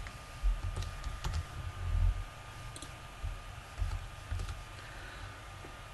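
A few scattered clicks of a computer keyboard and mouse, with some light dull knocks, over a faint steady high-pitched whine.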